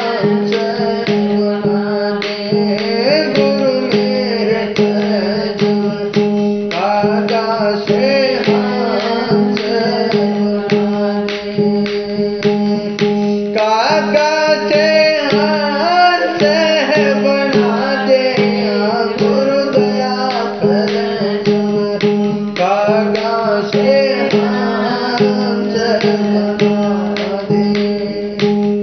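Devotional shabd (bhajan) music: a steady low drone under a melody line that bends up and down, with regular drum strokes keeping the rhythm.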